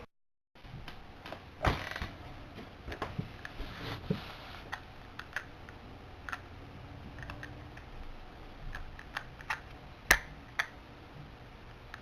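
Scattered small clicks, taps and handling noises of small objects being picked up and moved about, with two louder knocks, one near the start and one near the end.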